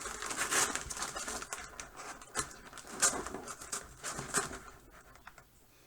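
A mail package being opened by hand: rustling, crinkling and tearing of the packaging in quick scratchy bursts, thinning out and quieter toward the end.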